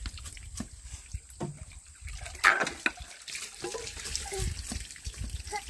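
A large knife cutting and splitting moist plant pieces: an irregular series of cuts and cracks, the sharpest about two and a half seconds in.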